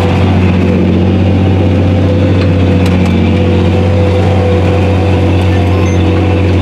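John Deere 8520T track tractor's 8.1-litre engine running steadily under load while pulling a tillage disk, heard from inside the cab as a constant low drone.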